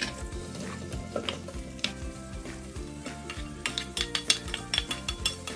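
Bacon sizzling in a non-stick frying pan while a plastic spatula stirs it, with sharp taps and scrapes of the spatula against the pan and plate. The taps come thicker in the second half, as diced ham is scraped off the plate into the pan.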